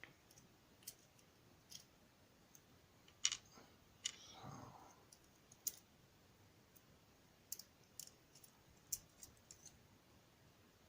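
Small metal lock parts of a dimple-lock cylinder clicking and tapping as it is taken apart, scattered irregular clicks with the loudest about three seconds in. A brief scraping sound comes about four seconds in.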